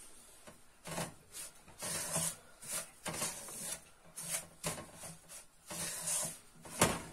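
Wooden spoon scraping and stirring semolina as it roasts in oil in a frying pan, in repeated rasping strokes about one a second, with a sharper knock near the end.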